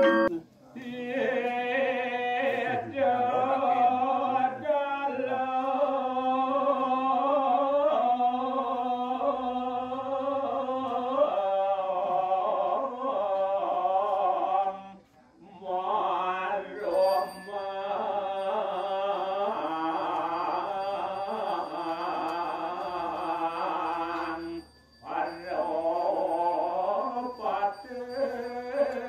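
A man singing a slow Balinese devotional chant through a microphone and loudspeaker, in long, ornamented phrases that bend in pitch. There are two short breaks for breath, at about the middle and about four-fifths of the way through.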